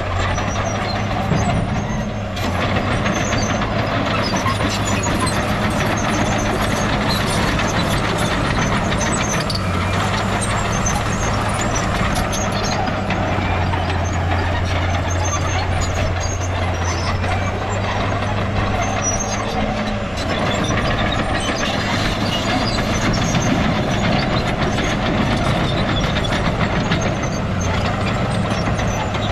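Diesel engines of a bulldozer and dump trucks running steadily under work, with a deep engine hum that shifts slightly in pitch every few seconds over a dense mechanical clatter.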